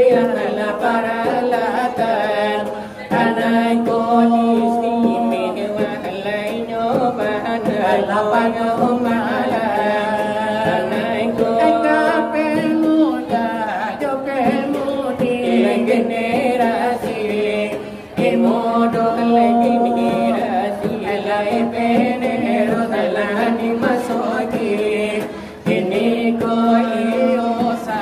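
Shalawat dulang: Minangkabau Islamic devotional verses sung by the group's voices in long, ornamented phrases over the rhythmic finger-tapping of a large brass tray (dulang). Short breaks between phrases come at about 3, 18 and 26 seconds.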